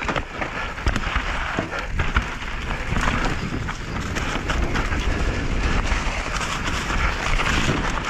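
Enduro mountain bike riding fast down a rocky trail: tyres rolling and knocking over stones, with a constant clatter of chain and frame rattle. Wind rumbles on the body-worn microphone throughout.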